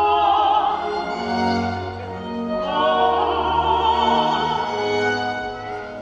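Slow orchestral music with a high, wavering vocal line held over sustained strings, swelling twice.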